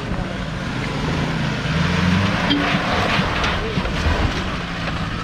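Maruti Suzuki Gypsy's engine running under load as it drives up and over a muddy, rocky off-road obstacle close by, its pitch rising and falling with the throttle.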